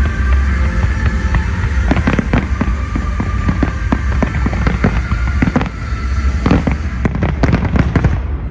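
Aerial fireworks display going off: a dense run of sharp cracks and bangs over a deep, continuous rumble. The bangs stop abruptly near the end.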